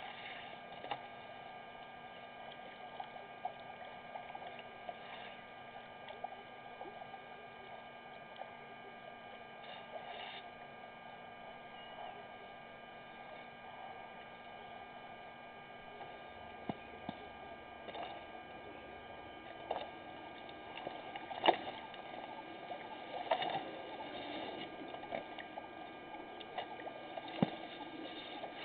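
Steady electrical hum at several pitches, with scattered faint clicks and taps and one sharper click about 21 seconds in.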